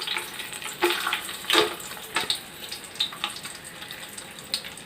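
Cashew nuts sizzling in hot sunflower oil, a steady frying hiss with a few short clicks.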